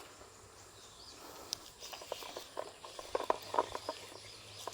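Freshly landed snakehead thrashing on the ground: irregular light slaps and knocks that start about a second and a half in and come thickest near the end.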